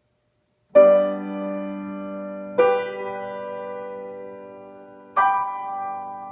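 c.1982 Steinway Model L grand piano playing three full chords, struck about two seconds apart, each left to ring and slowly die away.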